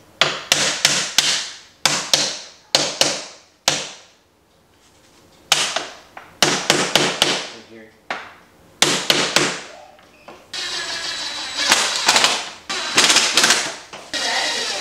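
Hammer blows on a window frame during fitting of a new window, in quick runs of three to five strikes, each ringing briefly. About ten seconds in the blows turn into a denser, steadier run of rapid impacts.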